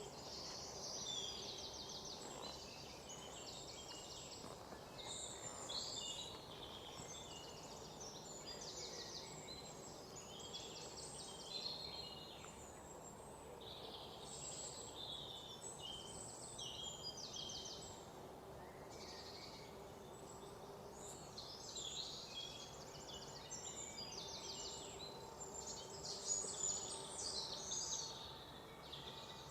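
Forest ambience: several songbirds chirping and trilling in quick, repeated phrases over a soft steady background hiss.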